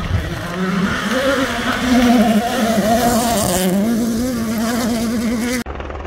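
Toyota GR Yaris Rally1 car's turbocharged four-cylinder engine revving hard under full throttle, its pitch climbing, dipping once and climbing again through gear changes. The sound cuts off suddenly near the end.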